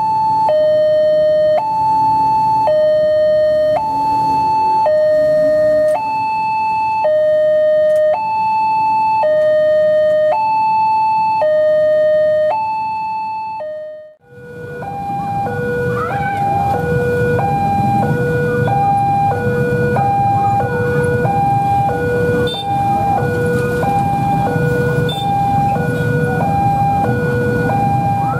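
Electronic two-tone warning alarms of Indonesian railway level crossings, sounding while the crossing is closed for a train. First one crossing's alarm alternates slowly between a high and a low tone, about a second each. About halfway it cuts out briefly and another crossing's alarm comes in: lower, and alternating faster, about half a second per tone. Road traffic noise runs under both.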